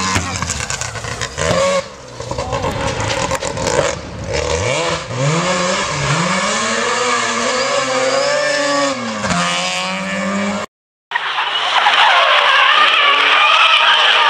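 Mazda RX-7 rally car's rotary engine revving hard as it passes on a gravel stage, its pitch climbing and dropping several times through gear changes. After a sudden break about 11 seconds in, tyres squeal steadily as a car drifts on tarmac.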